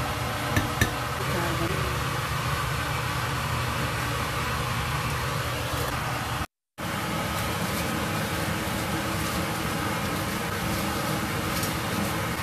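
Two sharp metal taps just after the start, as a wire spider strainer knocks against a stone mortar while fried chilies and shallots are tipped in, over a steady background hiss and hum. The sound cuts out briefly just past halfway.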